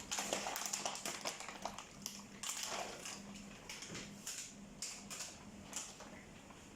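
Plastic bag being handled, crinkling and rustling in short irregular bursts with light clicks.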